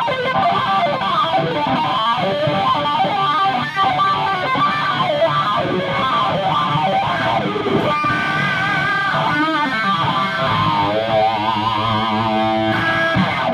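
Electric guitar played through a Dunlop Cry Baby wah pedal: fast lead lines with the tone sweeping up and down, then a held chord near the end with the wah rocking back and forth, cutting off at the close.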